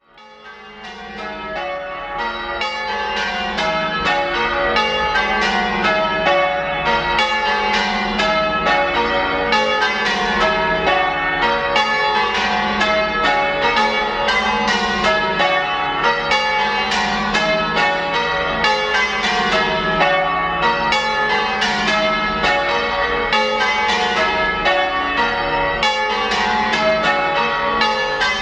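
A heavy ring of six church bells, all cast in the 1600s, being change-rung: a continuous, even run of strikes from the different bells with a low booming hum underneath. It fades in from silence over the first few seconds.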